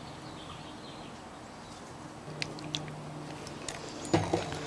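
Faint stirring of a sticky clear-glue slime mixture as saline solution activator is worked in, giving a few soft clicks and squelches over a low steady hum.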